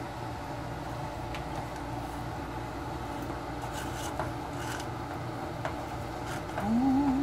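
Wooden spoon stirring and scraping clumpy melting sugar in an aluminium pot as it turns to caramel, a few faint scrapes and taps over a steady background noise. Near the end a brief rising hum from a voice, the loudest sound.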